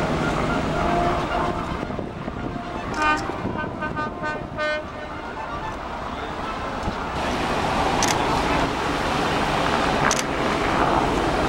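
A boat's horn sounding a quick run of short toots, about two seconds long, starting about three seconds in, over a constant wash of outdoor noise.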